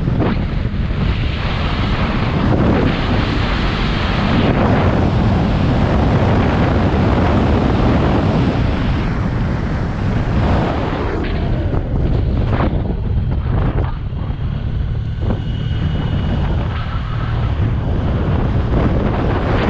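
Wind buffeting the microphone on a moving motorcycle, with the motorcycle's engine running as a steady low rumble underneath.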